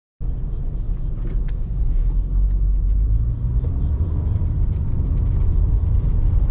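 Cabin noise of a Ford EcoSport 1.5 petrol automatic on the move: a steady low rumble of engine and tyres on the road, cutting in suddenly just after the start.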